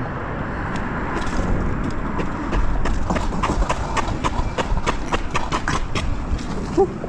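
Wolf King GTR electric scooter rolling down a steep paved path over rough, cracked concrete, with steady rushing noise. About three seconds in, a quick, uneven run of sharp clicks and knocks starts as the scooter rattles, dying away about six seconds in.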